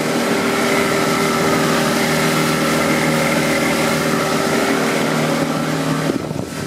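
Outboard motor pushing a small powerboat at steady speed: an even engine hum under the rush of wind and churning water. The engine note drops away near the end.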